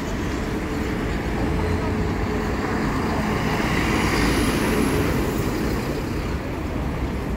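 City bus driving past over steady street-traffic noise, its engine swelling to its loudest about four to five seconds in, with a faint high whine as it goes by.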